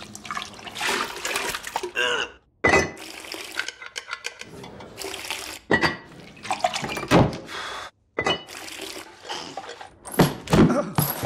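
A rapid string of short chore sounds: thick liquid pouring and slopping into a bowl, crockery pots knocking, and dull thunks. The string is broken twice by abrupt cuts to silence.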